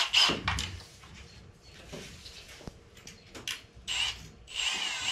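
Hand work on a wooden boat deck: irregular scraping and rubbing of wood and tools, in several short rasping bursts, the longest near the end.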